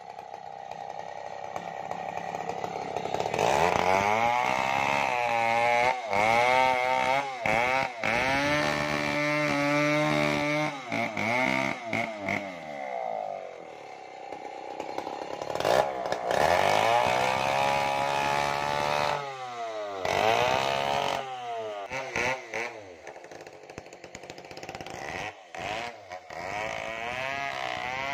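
New West 070 two-stroke chainsaw with a 36-inch bar cutting through coconut palm wood lengthwise, the engine's pitch climbing and sagging again and again as the chain loads into the cut and eases off.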